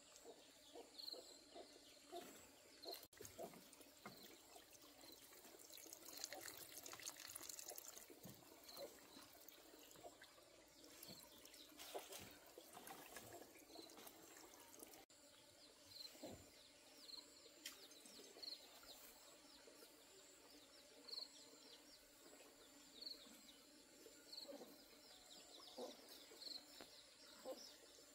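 Near silence: faint scattered small taps and clicks, with a faint short high chirp repeating every second or two.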